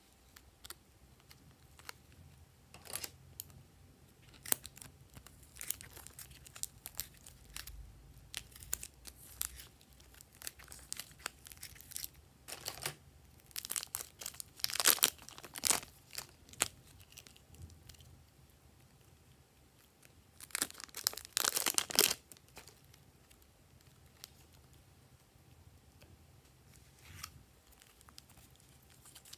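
Plastic zip-top bags crinkling and rustling in the hands as soft clay is squeezed out of them, in short irregular bursts. It is loudest twice, about halfway through and again about three-quarters through.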